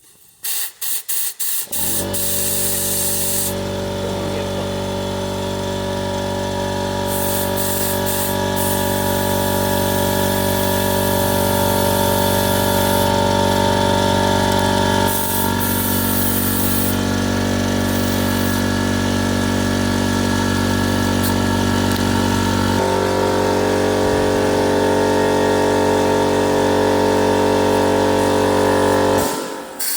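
Air compressor motor starting with a few stuttering bursts, then running steadily under load for about half a minute, with a small change in pitch late on, before cutting off abruptly.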